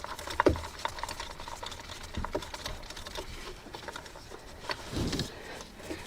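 Hand tools and metal parts being handled: irregular small clicks, clinks and taps, with a dull thump about half a second in and another about five seconds in.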